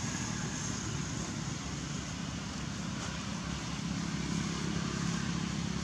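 Steady outdoor background noise: a low engine rumble from distant traffic under a broad hiss, growing slightly louder about four seconds in as a motor vehicle passes.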